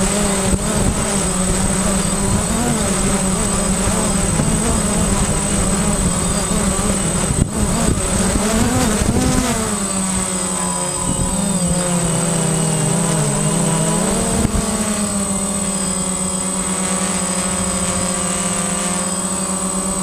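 Quadcopter drone's propellers and motors buzzing, heard up close from the camera mounted on it, with a steady high whine on top. The buzz wavers in pitch and dips slightly about ten seconds in before settling.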